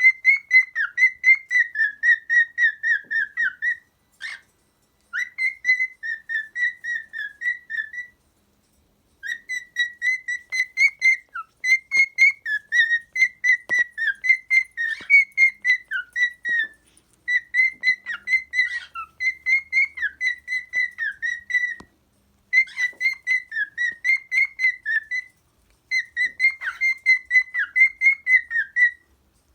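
Cockatiel whistling its song: phrases of quick, warbling whistled notes, each phrase a few seconds long, separated by short pauses.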